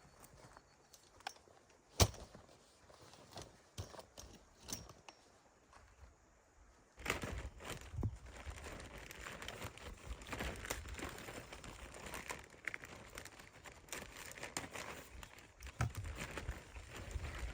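A few scattered clicks and one sharp knock, then from about seven seconds in a continuous crinkling and rustling, as of something being handled.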